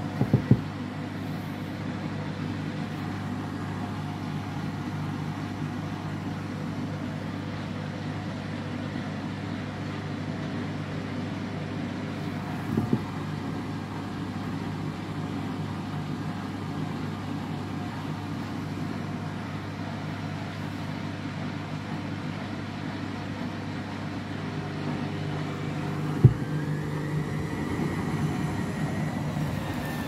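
Front-loading washing machine running with water still in the drum: a steady motor and pump hum, with a few knocks as the drum turns. Near the end a faint motor whine rises and then falls.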